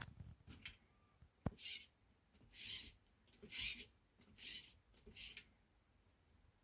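Hands handling the contents of an unboxed RC truck kit: a few light clicks, then five short scratchy rubbing or rustling strokes about a second apart.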